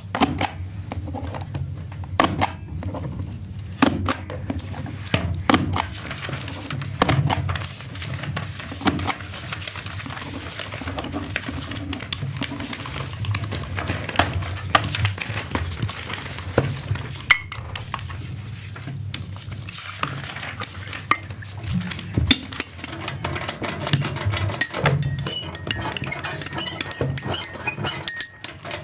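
Office objects being handled in a small room: a string of separate clicks, knocks and clinks, turning to a quicker, finer ticking in the last few seconds.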